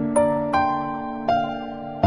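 Soft instrumental background music: a slow melody of separate notes that ring on.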